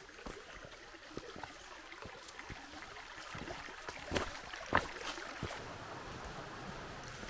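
Footsteps and scuffs on rock over a steady rushing background, with two louder knocks about four and five seconds in.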